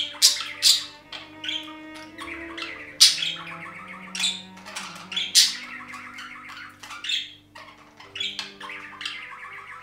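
Budgerigars chattering and warbling, broken by sharp squawks every second or so, over soft background music with long held notes.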